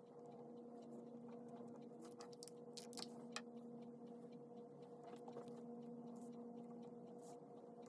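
Faint scratching and ticking of a pen writing on paper, busiest around the middle, over a steady low hum.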